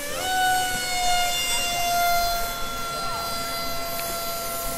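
Electric motors and propellers of a small three-rotor VTOL drone whining in flight. The pitch jumps up sharply right at the start as the throttle comes up, then holds nearly steady, sagging slightly.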